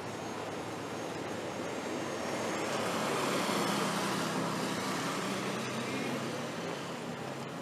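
Street traffic noise: a passing vehicle rises to a peak about three and a half seconds in and fades away again.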